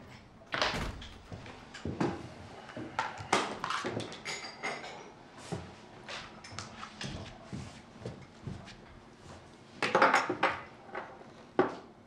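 An office door shutting shortly after the start, then a run of light knocks, taps and clinks as cups are set on a table and chairs are moved. A louder cluster of knocks and clinks comes near the end.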